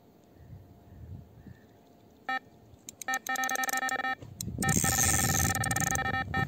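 Electronic carp bite alarm sounding a run: a single beep about two seconds in, then fast beeping that turns into an almost unbroken tone, with a loud rush of noise under the last part. The run is the sign of a carp taking the bait and pulling line off the rod.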